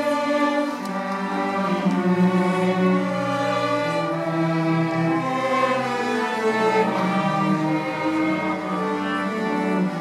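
School string orchestra playing, violins over cellos with sustained, layered bowed notes.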